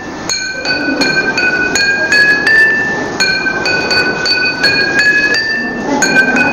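Jal tarang made of glass cups holding coloured water, struck one after another to play a tune. Clear ringing glass notes come about three a second, climbing step by step in runs, with a fresh low start after a short pause about three seconds in.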